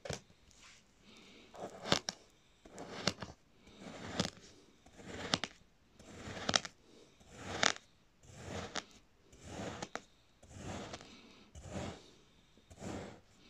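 Knife slicing through a block of kinetic sand, about one cut a second: each stroke is a brief swell of noise that ends in a sharp tap as the blade meets the surface beneath.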